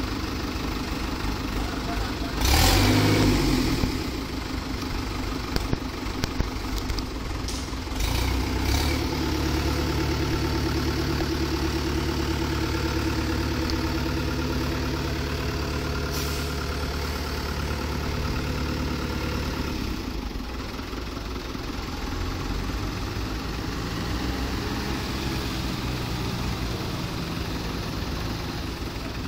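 Farm tractor's diesel engine running, with a loud burst of noise a couple of seconds in. The engine picks up and runs harder about eight seconds in, then eases back about twenty seconds in.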